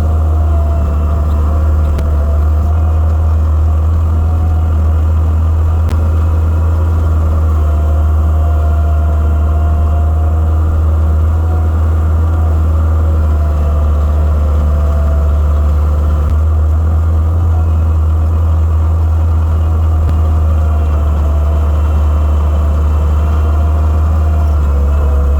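Gehl skid steer's diesel engine running steadily, a deep, constant drone with no breaks.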